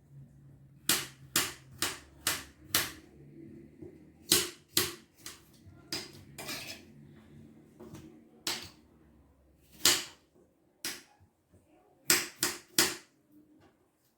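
Knife chopping apple on a cutting board: about fifteen sharp, uneven knocks, some in quick runs of three to five, others single.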